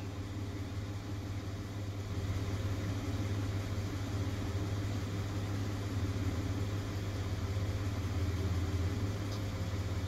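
2010 Mitsubishi Pajero engine idling steadily with a low, even hum.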